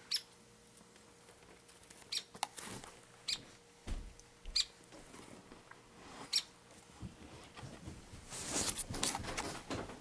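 Hairy woodpeckers giving short, sharp peek calls, one at a time every second or two, then a quicker scratchy flurry of sounds near the end.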